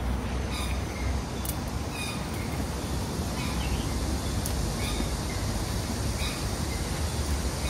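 Birds giving short, repeated calls every half second to a second over a steady low outdoor rumble.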